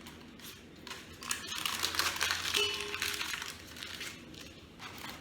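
Butter wrapper crinkling and rustling as it is handled, in irregular bursts that are busiest in the middle.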